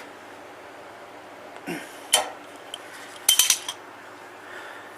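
Metal hand tools clinking and knocking against the underside of a Honda Pioneer 700 UTV while the oil drain plug is tightened: a couple of sharp clinks, then a quick run of clicks a little past the middle.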